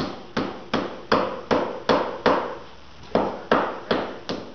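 Hammer striking wood over and over at about two and a half blows a second, with a short pause a little before the three-second mark, while rotten subfloor is knocked loose.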